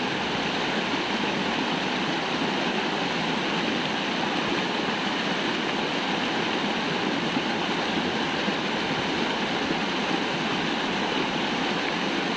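Shallow stream water rushing and splashing over rocks: a steady, even rush of white water.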